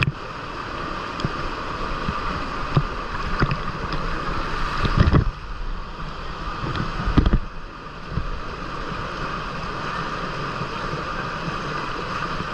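Steady rush of river and waterfall water in a canyon, with scattered short knocks and two louder low thumps about five and seven seconds in.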